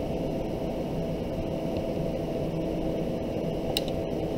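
Steady low background hum and hiss, with a faint click near the end.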